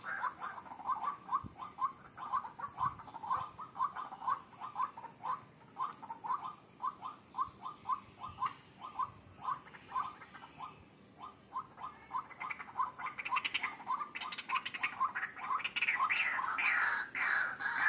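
White-breasted waterhen calling: a long run of short repeated notes, about four a second, then louder, harsher falling calls from about twelve seconds in.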